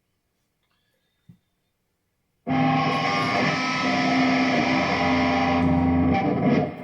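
Jackson Dinky electric guitar starting about two and a half seconds in, with a chord ringing for about four seconds and a few more notes struck near the end before it dies away. It is being played to hear the effect of a swapped tone-knob capacitor.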